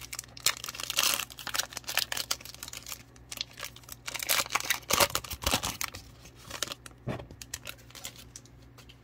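A plastic trading-card pack wrapper being torn open and crinkled by hand, with cards slid out of it; the crackling is busiest about a second in and again around four to five seconds, then thins out near the end.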